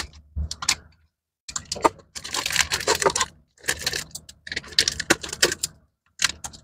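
Crackling and crinkling of a blind-box toy pouch being handled and torn open, in several bursts of quick, sharp clicks with brief silent gaps between them.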